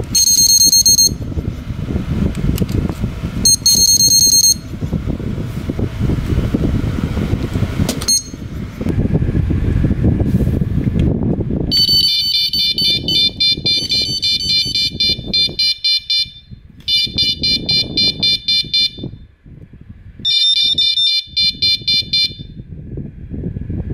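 Hirisi S5 wireless carp-fishing bite alarms beeping: first one alarm head gives two high beeps of about a second each, then from about twelve seconds in the set of heads and the receiver sound together in fast pulsed beeping, three bursts of a few seconds each. Line movement through the alarm's slot sets it off, signalling a bite. A low rumbling noise runs underneath.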